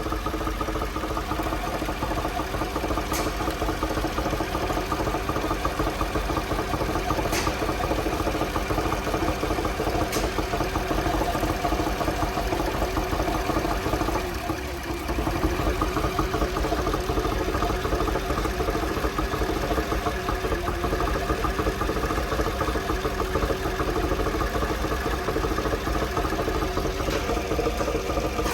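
2015 Chevy Silverado's 6.2-liter V8 idling with a cylinder 5 misfire, popping back out through the intake. The mechanic blames a lifter that has rotated in its guide and rides too high. The sound dips briefly about halfway through.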